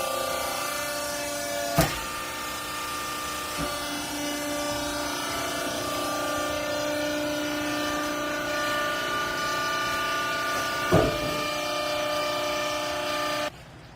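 Hydraulic used-clothes baler running, its pump and motor giving a steady whine with a sharp knock about two seconds in and another near eleven seconds. The sound cuts off suddenly just before the end.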